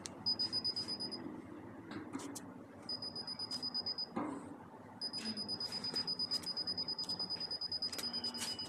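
Satellite finder meter beeping: rapid high-pitched beeps in three runs that start and stop as the dish's LNB is turned, the longest from about five seconds in, the sign that the meter is picking up satellite signal while the dish is aligned. A few light knocks from handling the LNB mount.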